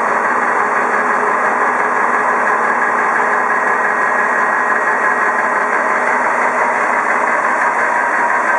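A steady mechanical drone with faint steady whines, unchanging throughout.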